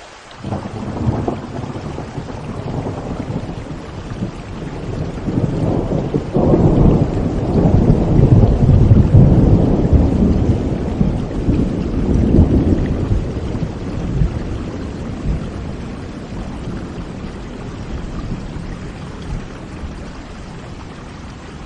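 Rolling thunder over steady rain: a low rumble sets in suddenly, swells to its loudest in the middle and slowly dies away.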